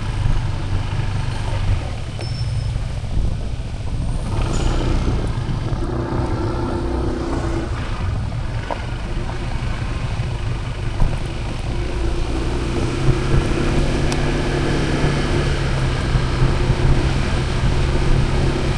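A motor vehicle engine running steadily with road noise; its hum grows stronger about halfway through.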